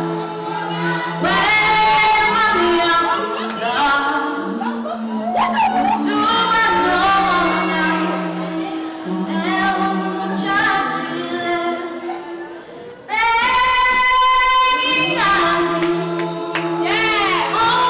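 A group of voices singing, apparently a cappella, with female voices prominent. They hold long notes over a steady low sustained tone, with a brief drop near the end before the singing swells back in.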